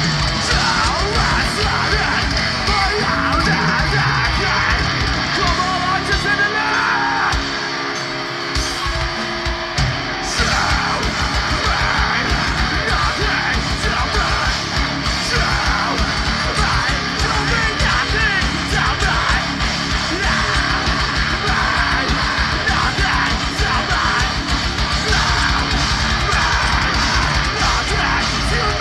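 Live heavy metal band playing loud: distorted guitars, drums and yelled vocals. About seven seconds in the drums drop out briefly and a held guitar chord rings on its own before the full band comes back in.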